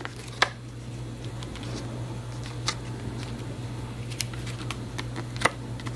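Stiff clear plastic clamshell packaging being cut with a small hand-held blade package opener and worked by hand, giving scattered sharp clicks and crackles over a steady low hum.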